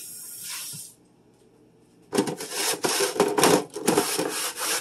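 Tap water running, stopping about a second in; then, from about two seconds in, quick irregular rubbing strokes of refrigerator containers being scrubbed and wiped out.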